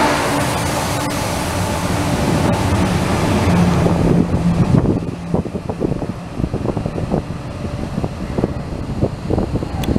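Class 68 diesel locomotive 68004 passing close at speed, its Caterpillar V16 engine working under power beneath a heavy rush of wheel and air noise. About five seconds in the rush drops away, leaving the uneven knocking and clatter of the nuclear flask wagons' wheels on the rails as the train draws off.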